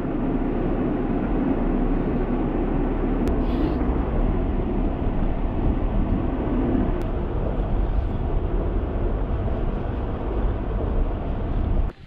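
A car being driven, heard from inside the cabin: a steady engine and road rumble, with two brief light clicks.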